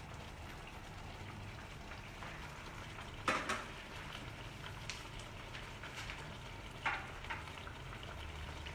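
Thick tomato-cashew makhni gravy simmering and bubbling in a hot kadhai while it is cooked down to thicken. There are two short knocks, about three seconds in and again near seven seconds.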